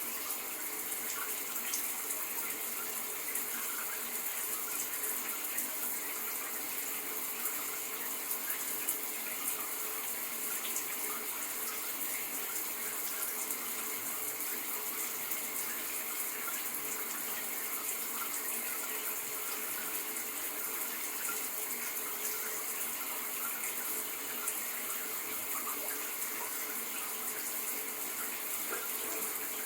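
Shower running steadily: a continuous hiss of spraying water with fine spatter.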